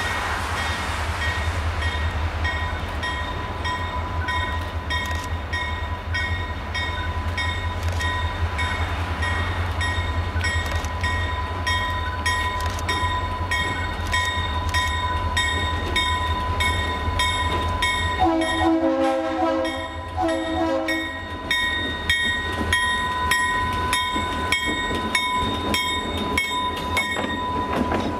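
Diesel locomotives rolling slowly past with their engines rumbling and a bell ringing steadily throughout. About two-thirds of the way through, the locomotive horn sounds two blasts, the second shorter than the first.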